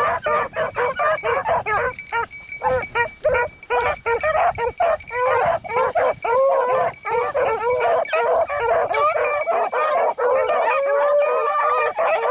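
Several beagles baying together in quick, overlapping calls, a few drawn out longer near the end: the hounds giving voice as they run a rabbit's scent.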